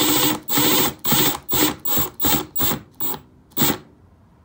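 Milwaukee M12 Surge hydraulic impact driver run in a quick series of short trigger pulses, about three a second, each burst shorter and fainter than the last until they stop near the end. The trigger is being feathered on the lowest setting to seat a small screw in wood without over-torquing or stripping it.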